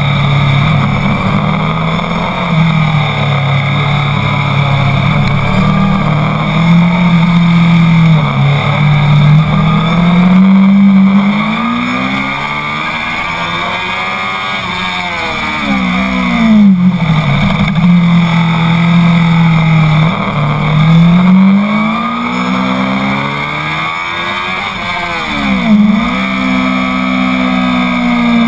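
Honda CBR1000's inline-four engine under hard track riding, its pitch climbing through the gears and dropping under braking and downshifts, twice over, with short dips at the gear changes.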